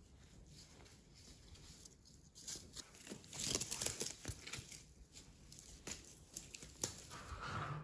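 Corrugated cardboard strips rustling and scraping while a cat paws and grabs at them, with scattered light taps. The loudest rustling comes about three to four seconds in.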